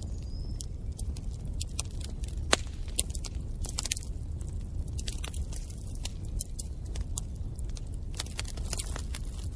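Wood fire crackling in a fireplace: irregular sharp pops and snaps over a steady low rumble of the flames, the strongest pop about two and a half seconds in.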